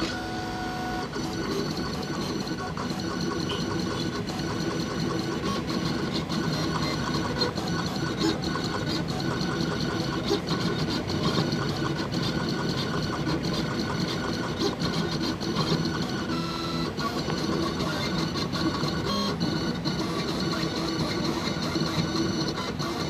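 Jinka vinyl cutting plotter running a cut job, its stepper motors whirring and buzzing steadily as the blade carriage and feed roller move the Scotchlite reflective sticker film to trace lettering.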